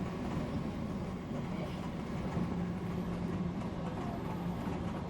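Odakyu electric commuter train running between stations, heard from inside the car: a steady rumble of wheels on rails with a low motor hum that swells and fades.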